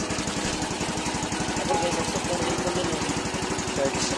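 Yamaha Mio Sporty scooter's single-cylinder four-stroke engine idling with a steady, rapid low pulse.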